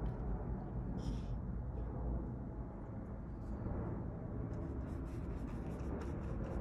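Flat paintbrush scratching and dabbing acrylic paint onto a stretched canvas, in quick repeated strokes starting about four and a half seconds in, over a steady low background rumble.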